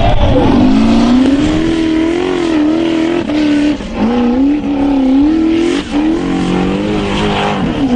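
Off-road vehicle engine revving hard, its pitch climbing and dropping several times, with a few brief lifts off the throttle.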